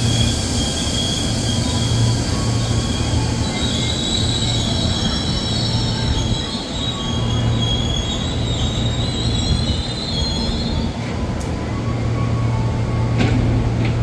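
KRL Commuter Line electric train braking along the platform, its wheels and brakes squealing in high, wavering tones until it halts about ten seconds in. A steady low hum from the stopped train carries on underneath, with a few sharp clicks near the end.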